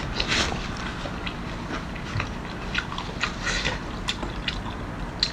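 A person biting and chewing food close to the microphone, with many short wet mouth clicks and smacks at irregular intervals.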